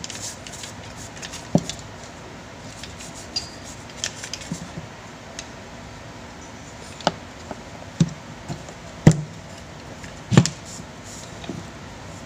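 An electric fan's motor and gear housing being handled and scrubbed with a toothbrush: light scrubbing with several sharp clicks and knocks of plastic and metal parts, the loudest two in the second half.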